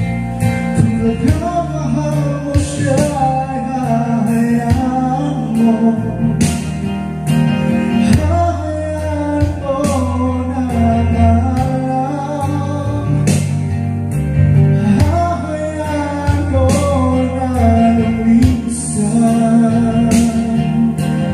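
Karaoke song playing from a Platinum Reyna SE karaoke player: a slow backing track with guitar, bass and drums under a melody line.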